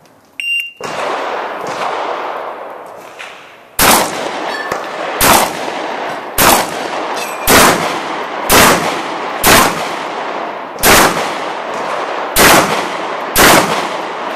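A shot timer beeps once to start the stage, then a shotgun fires nine shots over about ten seconds at irregular spacing, each shot followed by a short echo off the range walls.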